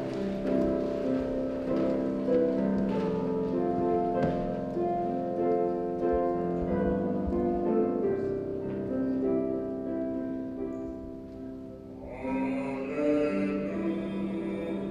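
Church keyboard playing slow sustained chords as liturgical music. About twelve seconds in, a solo singer joins over the accompaniment.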